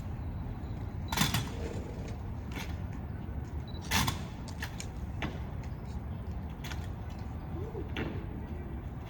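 Sharp slaps and clacks of drill rifles and hands in a rifle drill team's routine, landing at a slow, even beat about every second and a half, loudest about a second in and again about four seconds in, with lighter clicks between. A steady low rumble of outdoor noise runs underneath.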